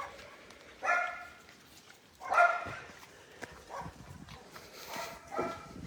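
Dogs barking, about four short barks spaced a second or so apart, fairly faint: dogs stirred up by a human voice rather than settling to sleep.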